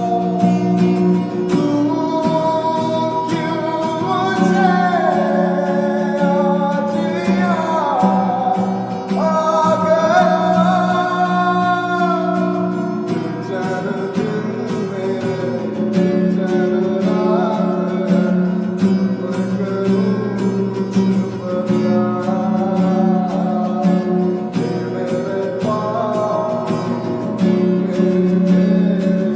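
A Hindi song playing: singing over a steady instrumental accompaniment.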